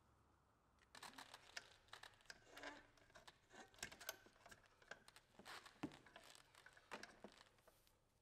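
Quiet, irregular clicking and rustling from hands handling cord and small fittings, as steering lines are hooked onto an inflatable kayak's rudder mount. It starts about a second in.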